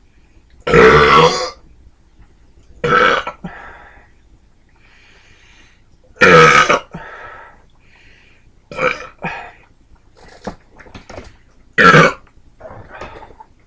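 A man burping repeatedly after gulping down a can of lightly carbonated drink. Several loud belches come one after another, the biggest about a second in, around six seconds and near the end, with smaller ones between.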